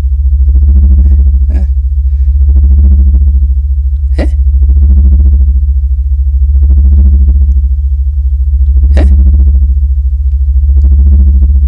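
Synthesized electronic drone: a loud, steady low hum under a pitched tone that swells and fades about every two seconds. Two quick sweeping zaps cut through about four and nine seconds in.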